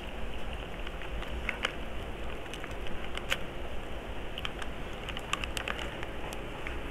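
Close-up eating sounds: irregular small clicks and crackles of chewing and handling food, noodles and crunchy pork rinds, over a steady low hum.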